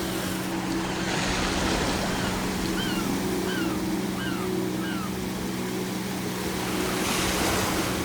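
Ocean waves breaking and washing in, surging about a second in and again near the end, while gulls give a run of short, falling calls in the middle, over a steady low hum.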